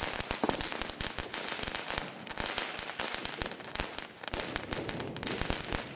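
Several Pyrotrade Mega Crackling ground fireworks burning together, giving a dense, continuous stream of sharp crackles and small pops that thins briefly about four seconds in.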